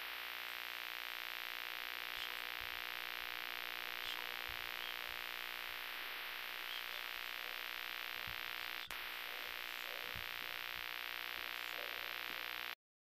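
A steady hissing drone with a faint hum under it, like static, cutting in abruptly and stopping abruptly, with a brief dropout about two-thirds of the way through.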